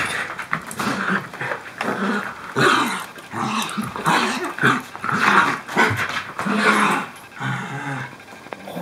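Small dogs play-fighting, growling in short, repeated bursts as they wrestle.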